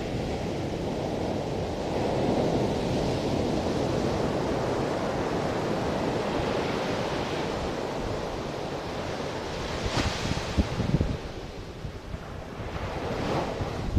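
Ocean surf breaking and washing up a sandy beach, a steady rush that swells a couple of seconds in and ebbs again, with wind on the microphone and a few thumps on it about ten seconds in.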